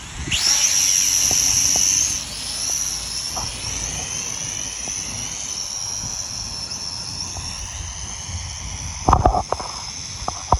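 Small quadcopter drone's propellers spinning up into a high-pitched whine as it lifts off. The whine is loudest for the first couple of seconds, then steadier and quieter as the drone flies away. A brief knock comes near the end.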